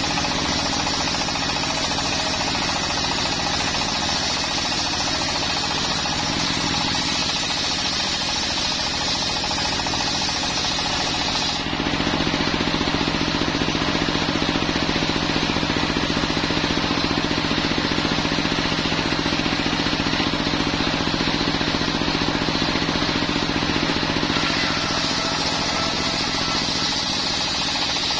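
Single-cylinder diesel engine running steadily, belt-driving a circular saw blade that rips a coconut-wood beam. The cutting stops about a third of the way in while the engine and blade run on freely, and the blade bites into the wood again near the end.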